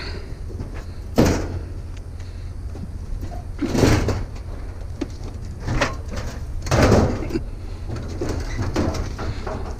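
Sheet-metal laundry appliance being handled and dragged: a sharp knock about a second in, then several scraping, sliding bangs of metal, the loudest about seven seconds in, over a steady low rumble.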